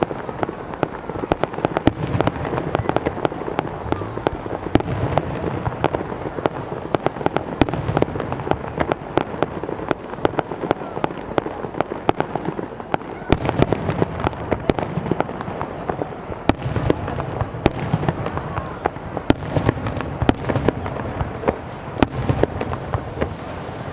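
Fireworks display with aerial shells bursting overhead: many sharp bangs in quick, irregular succession over a dense wash of noise.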